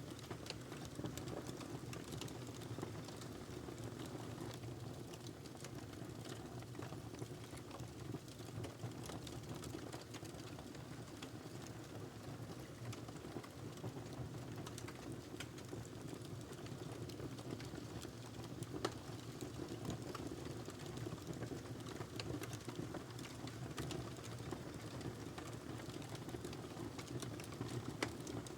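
Wood fire burning in a fireplace: a steady low rush of flames with frequent small crackles and pops, a couple of them sharper than the rest.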